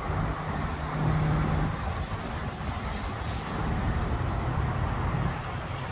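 City road traffic: a steady low rumble and hiss, with a low hum that swells briefly about a second in.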